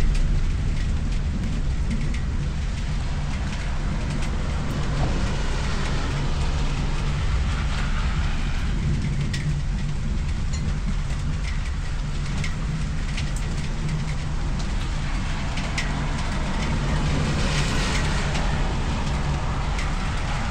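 Rain ambience with scattered sharp raindrop ticks over a steady low rumble. Twice, a passing car's hiss swells and fades.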